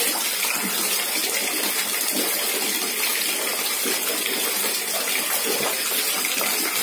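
Water sloshing and splashing as hands wash and squeeze torn mushroom pieces in a bucket, over a steady rushing hiss of water.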